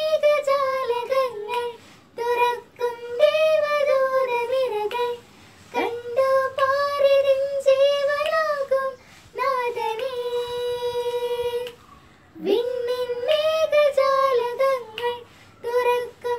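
A child singing alone with no instrumental backing, in short phrases with brief breaks, holding one long wavering note about ten seconds in.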